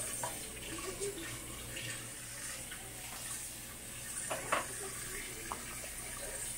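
Kitchen faucet running, its stream splashing into a stainless steel sink over dishes as hands rinse small egg-cooker parts under it. A few light clicks and knocks from the handling, the sharpest about four and a half seconds in.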